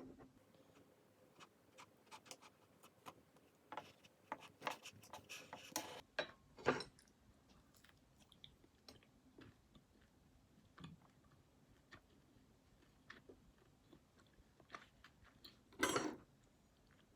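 Faint, scattered small clicks and taps, thickest in the first few seconds, with a louder click about seven seconds in and a short rustle near the end.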